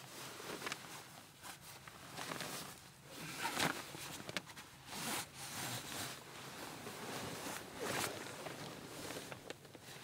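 Irregular rustling and scuffing of winter clothing and bedding as a person shifts about and handles gear in a tight space, with a few louder scrapes partway through.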